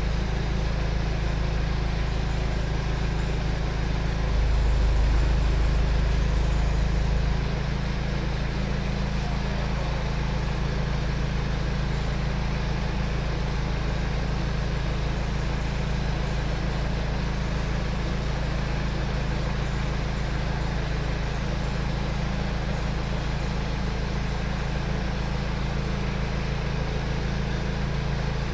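Forklift engine running steadily while it holds and lowers a truck cab on straps. It gets louder for about three seconds a few seconds in, then settles back.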